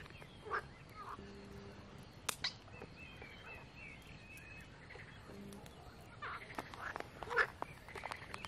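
Fingers digging and scraping through loose soil in a clear plastic box, with soft rustles and a few sharp clicks of fingertips on the plastic. Faint bird chirps sit in the background.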